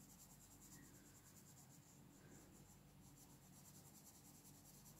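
Faint scratching of a coloured pencil shading on paper over near silence, with a faint steady low hum.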